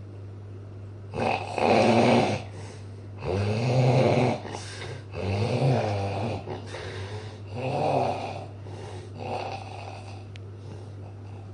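Snoring: about five snores roughly two seconds apart, the later ones weaker, over a steady low hum.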